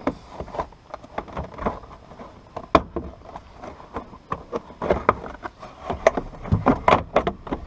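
Plastic interior trim of a Honda S2000 being pried and worked loose from its retaining clips: a string of irregular clicks and knocks, coming thicker in the second half.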